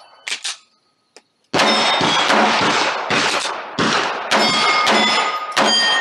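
Rapid pistol fire at steel targets: about eight shots about half a second apart, starting about a second and a half in, with the hit steel plates ringing after the later shots.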